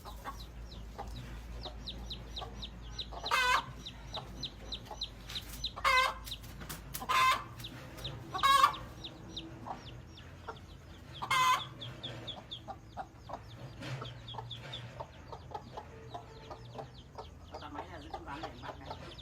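Domestic mother hen giving five loud short calls over the steady high peeping of her chicks.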